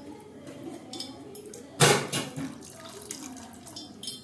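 Tamarind water poured from a steel bowl into a pressure cooker of sambar, splashing and trickling, with a sudden louder splash about two seconds in.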